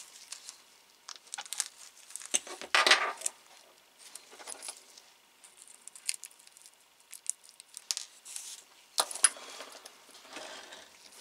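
Small metal screws and a precision screwdriver being handled against a plastic scale-model body: scattered light clicks and clinks, with a louder cluster about three seconds in and another about nine seconds in.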